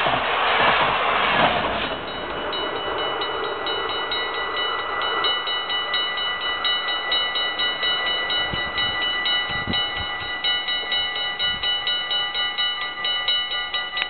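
The tail of an intercity train of ICR coaches rushes past for about two seconds. Then the level crossing's warning bell rings in a fast, steady series of dings, about four a second, as the barriers lift after the train has cleared.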